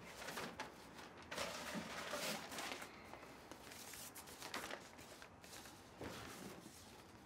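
Soft footsteps and rustling paper as papers are pulled from a manila envelope and handled, in several short bursts.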